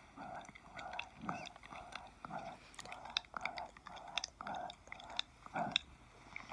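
ASMR mouth sounds close to the microphone: wet smacking and clicking, two or three a second.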